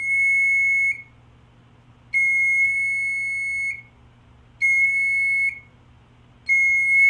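Smoke alarm horn sounding a shrill, steady high tone in four uneven blasts of about one to one and a half seconds each, with short gaps between: the alarm is going off by itself in an irregular pattern, a weird noise.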